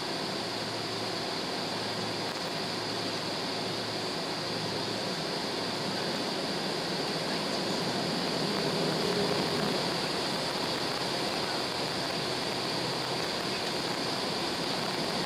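Steady cabin noise inside a jet airliner taxiing: the jet engines running at low thrust under an even rush of air, with a faint low hum that fades out about five seconds in and a slight swell in level near the middle.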